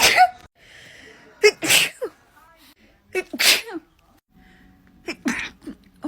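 A person sneezing in a rapid fit: four or five sharp sneezes, one every one and a half to two seconds, each led by a short catch of breath.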